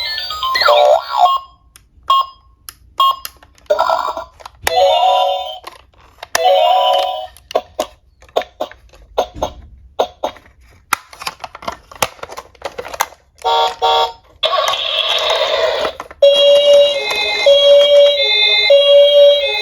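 Toy emergency vehicles being handled: many sharp plastic clicks and short electronic sound-effect bursts, then, about three and a half seconds before the end, a toy siren starts a repeating electronic pattern that switches on and off.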